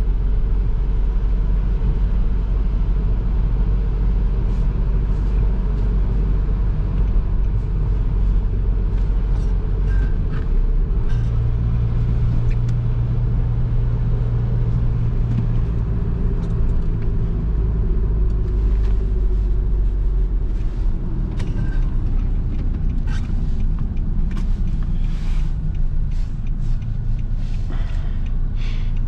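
Nissan NV200's 1.5 dCi four-cylinder diesel engine and road noise while driving, a steady low drone. The engine note changes pitch about ten seconds in and again around twenty seconds in, and light clicks and rattles come and go in the second half.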